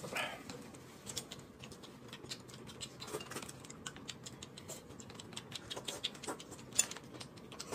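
Faint eating sounds at a table: an irregular string of small clicks and smacks from chopsticks on porcelain bowls and from slurping and chewing noodles.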